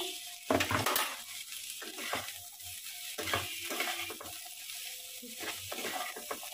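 Metal spatula scraping and knocking against a frying pan in irregular strokes as diced potatoes and onions are stirred, over a light sizzle of the frying oil. The loudest strokes come about half a second to a second in.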